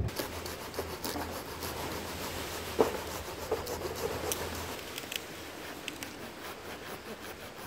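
A metal blade rasping and scraping against a log as it is cut for firewood, with irregular ticks and one sharp knock about three seconds in.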